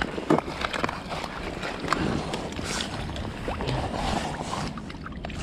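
Water sloshing and splashing, with irregular small knocks and rustles of handling, as a caught pike is lowered into the water and released.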